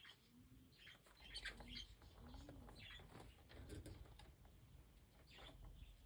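Young budgies (budgerigars) chirping faintly, a scatter of short soft chirps throughout.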